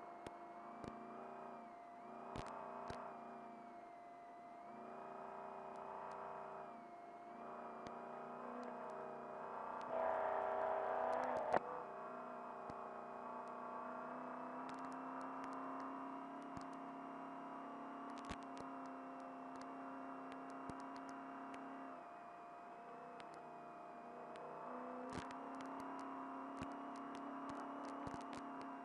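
Trophy truck engine running under load inside the cab, its revs rising and falling with the throttle, over a steady whine. Sharp clicks and rattles from the truck on rough ground are scattered throughout. A louder noisy stretch about ten seconds in ends in a sharp knock.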